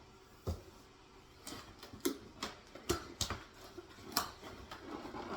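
Cardboard shipping box being handled and opened: irregular knocks and scrapes of cardboard, with rustling in between.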